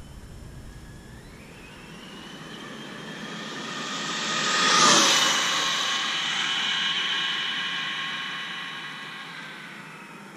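Traxxas Slash 4x4 RC truck's brushless electric motor and drivetrain on a full-throttle speed run, a high whine. It climbs in pitch as the truck accelerates toward the microphone, is loudest as it passes about five seconds in, then drops in pitch and fades as it speeds away.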